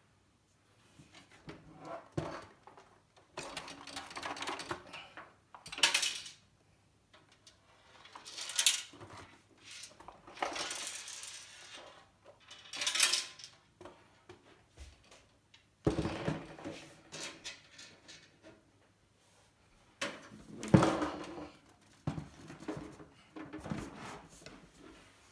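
Handling noises of computer hardware being fitted: irregular metallic clinks, scrapes and rubs, with a few sharp clicks and knocks.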